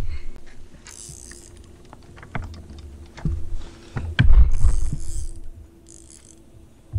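Low thumps and rumbles from handling in a small fishing boat, with scattered light clicks as a spinning reel is cranked to bring in a hooked fish. A faint steady hum runs underneath, with a few short bursts of hiss.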